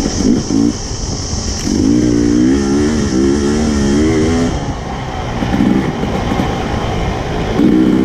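Dirt bike engine revving up and down while riding a trail, with short bursts of throttle and one longer pull in the middle, over steady wind and tyre hiss.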